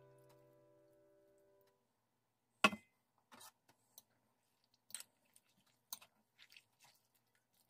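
Cabbage and spring onion pieces being turned by hand in a glass bowl of brine: one sharp knock a little under three seconds in, then scattered soft clicks and wet rustles.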